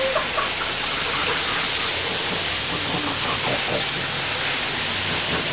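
Water rushing steadily through a storm drain tunnel, a constant hissing rush that echoes off the concrete, with faint voices beneath it.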